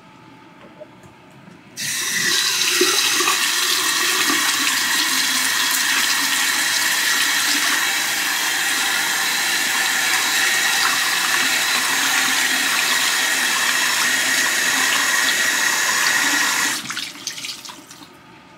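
Bathroom sink tap running hard into the basin: the water comes on suddenly about two seconds in, pours steadily, then tapers off as the tap is turned off near the end.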